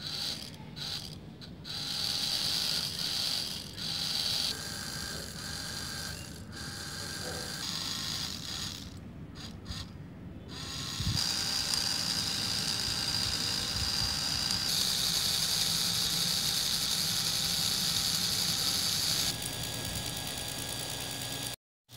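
Small electric motors whining steadily as a miniature model chaff cutter runs, with a mechanical whirr and rattle from its belt-driven flywheel and gears. The pitch and loudness shift abruptly several times.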